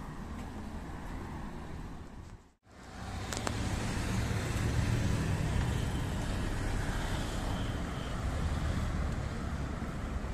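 Road traffic going by as a steady low rumble. The sound cuts out for a moment about two and a half seconds in, then returns louder.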